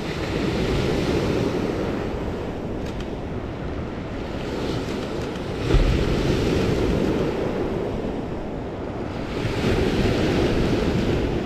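Lake Superior waves washing in and breaking on a pebble beach, the surf swelling about three times, with wind rumbling on the microphone and a sudden low bump about halfway through.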